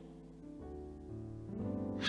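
Soft background keyboard music playing held chords, changing chords a few times.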